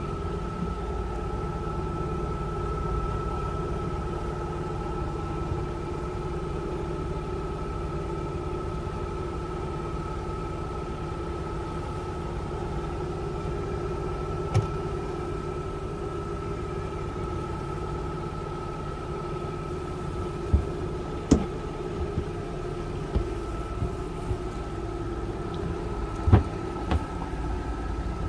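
A boat's engine running steadily, heard on board: a low rumble under a constant hum with a thin high whine. A few short sharp knocks come in the last several seconds.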